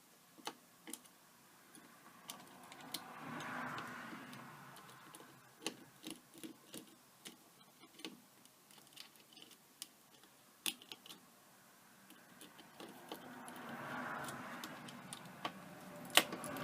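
Scattered light clicks and ticks of a small screwdriver and plastic drone-shell parts being handled while screws are taken out. Two soft rushing swells come through, one about three seconds in and one near the end.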